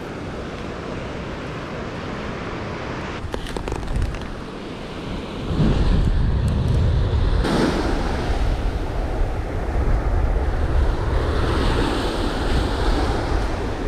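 Surf washing up the beach, with wind rumbling on the microphone that grows louder about five seconds in.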